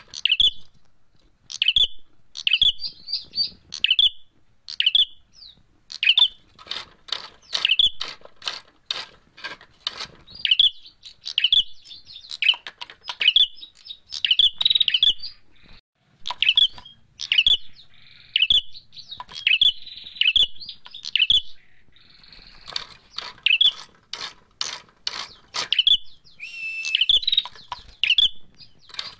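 Prenjak merah, a tailorbird, calling agitatedly in its fighting call: short bursts of sharp, rapid chips repeated about once a second, with brief pauses about a second in and about halfway through.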